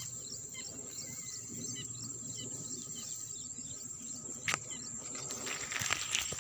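Steady high-pitched insect drone with small bird chirps over it in the first half. A sharp click comes about four and a half seconds in. Near the end, tall grass rustles close against the microphone, with a few clicks.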